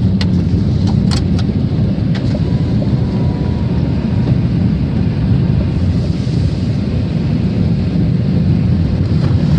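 Steady low rumble of a car driving, heard from inside the moving car, with a few light clicks in the first two seconds.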